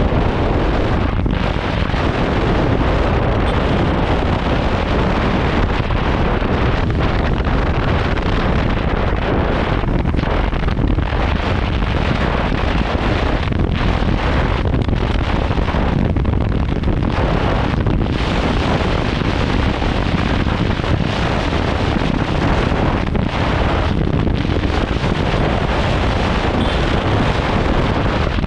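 Heavy wind buffeting on the microphone of a moving motorcycle, a loud, steady rush that briefly eases now and then. It drowns out the Yamaha YZF-R3's engine.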